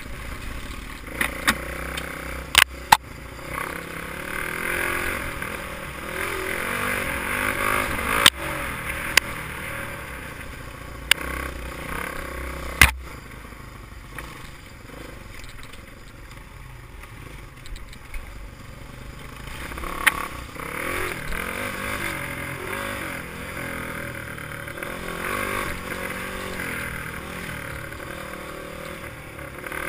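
Honda XR200 dirt bike's four-stroke single-cylinder engine under way on a woods track, the throttle opening and easing off, heard through a GoPro's housing. Sharp knocks cut in a few times: twice near the start, then around 8 and 13 seconds in.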